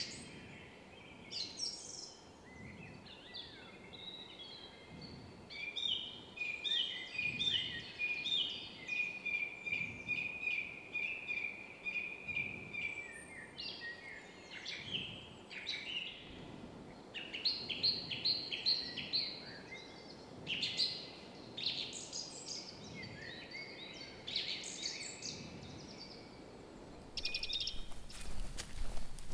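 Songbirds singing, with rapid trilled runs of repeated notes and many short phrases overlapping. Near the end a broad crackling noise starts.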